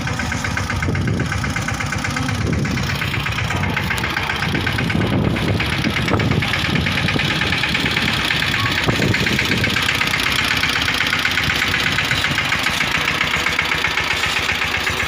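Diesel tractor engine running steadily, its rapid firing pulses even throughout and getting a little louder about five seconds in.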